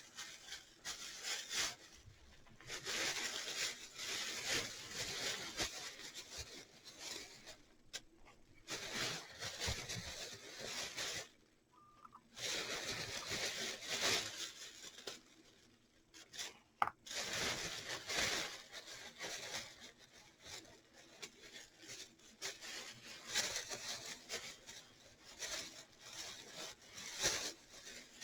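Rustling and rubbing as artificial flowers are handled and sorted through, in irregular stretches with short pauses and a few light clicks.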